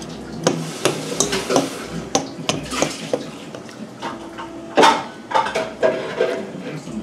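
A metal fork turning raw beef short ribs in their marinade, clinking and scraping against the pan in a run of irregular short clicks. The loudest clink comes a little before five seconds in.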